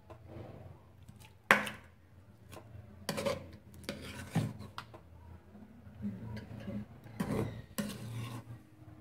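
Spatula clattering and scraping against a nonstick pan as chicken korma is spooned over a layer of rice. One sharp knock comes about a second and a half in, then bursts of scraping and tapping.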